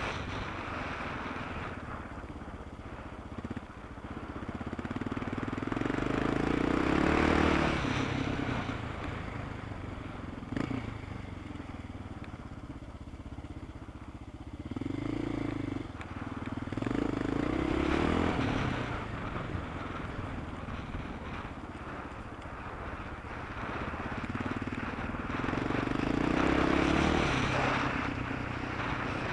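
Off-road motorcycle engine heard from onboard at race pace, revving up and down repeatedly with the throttle and gear changes, with several long swells in loudness.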